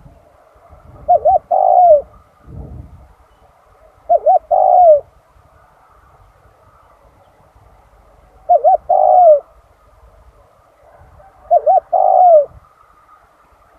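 Spotted dove cooing: four phrases about three to four seconds apart, each two quick short notes followed by a longer note that falls at the end.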